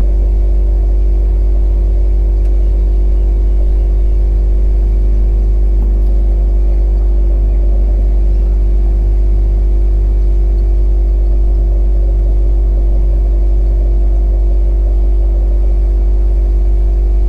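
Multirotor drone's propellers running steadily, a constant mid-pitched hum over a deep rumble with no rise or fall.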